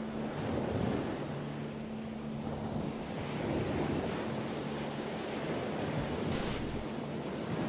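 Rough sea: waves surging and breaking with wind, a continuous rushing that swells and eases every few seconds.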